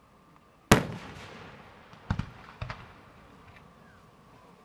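Aerial firework shells bursting: one loud bang a little under a second in with a long echoing tail, then a few lighter bangs in quick succession around two seconds in.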